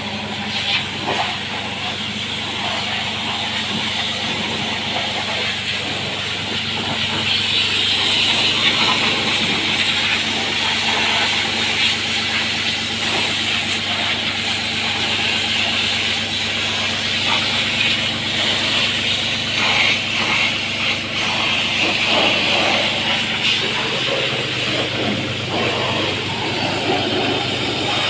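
High-pressure washer spraying water against a tractor, a steady hiss that grows louder from about seven seconds in, over a steady low motor hum.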